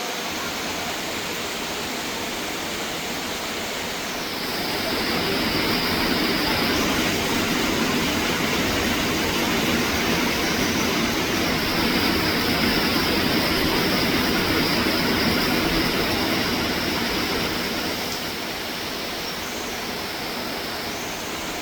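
Heavy rain pouring down in a steady rush. It grows louder about four seconds in and eases back a little near the end.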